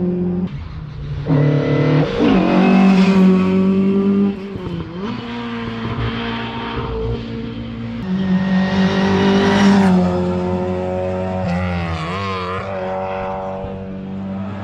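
Rally car engine revving hard on a special stage, its pitch climbing and then dropping sharply through several gear changes. It is loudest about a fifth of the way in and again about two-thirds through.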